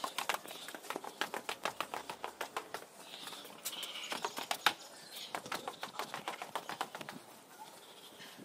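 Footsteps in sandals going quickly down concrete stairs: a rapid, uneven run of sharp clicks and taps, several a second.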